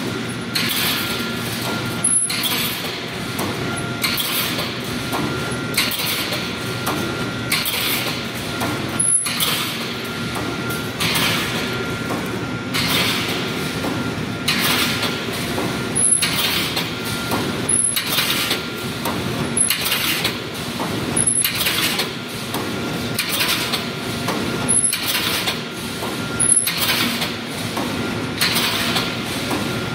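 Fully automatic construction mesh welding machine running in steady cycles, a burst of hissing air coming about every second and a half to two seconds over continuous machine noise.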